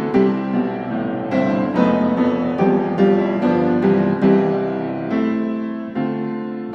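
Background piano music: notes struck one after another and left to fade over held lower notes.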